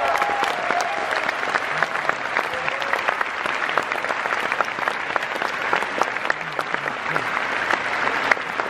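A large cinema audience applauding, dense, steady clapping that continues unbroken.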